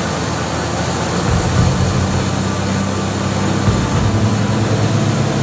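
Cessna 180 Skywagon's six-cylinder Continental O-470 engine and propeller running steadily, heard from inside the cockpit along with the rush of air over the cabin.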